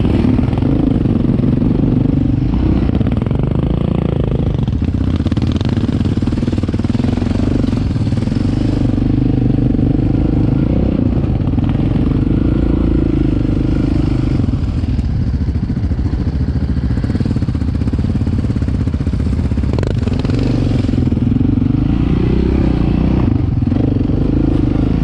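Sport quad (ATV) engine running under riding load, its pitch rising and falling as the throttle is opened and eased on a dirt trail.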